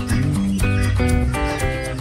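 Background music: a quick, regular run of notes over a steady low bass.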